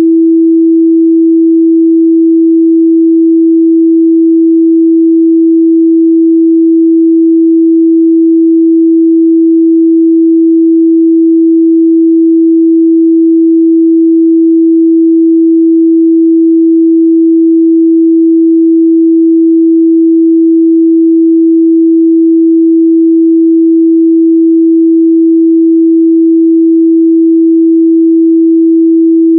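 A pure 328 Hz sine-wave test tone, held steady at one pitch and a constant level with nothing else behind it.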